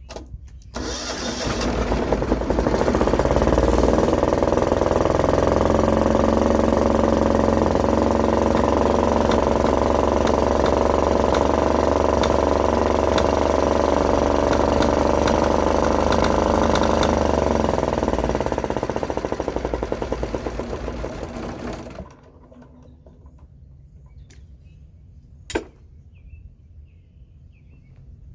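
Apache Premier 8500S diesel generator's engine starting, running steadily for about twenty seconds, then slowing and stopping. It is running with black smoke, which the owner thinks may need a new injector. A single sharp click a few seconds after it stops.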